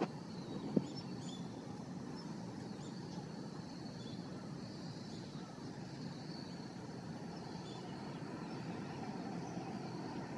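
Steady, distant drone of an aircraft engine overhead, with two sharp clicks in the first second.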